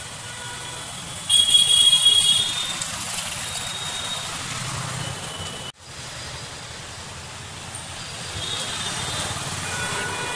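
Street traffic running steadily, with a loud shrill tone about a second in that lasts about a second. The sound cuts out briefly just past halfway.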